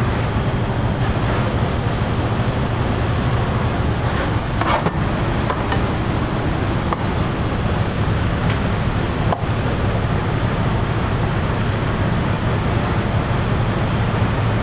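Steady low droning noise of restaurant kitchen equipment, with a few faint taps of a chef's knife on a plastic cutting board as the roulade and the seared tuna are sliced.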